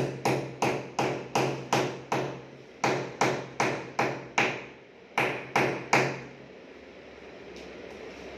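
Small hammer tapping a nail into a PVC wall panel along a seam: quick, sharp taps about three a second in runs with two short pauses, stopping about six seconds in.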